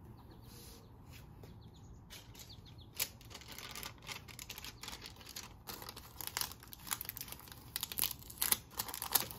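Fingers pressing and rubbing self-adhesive screen repair tape onto a window's insect-screen mesh: irregular scratchy rustles and small clicks that start about three seconds in and grow busier towards the end.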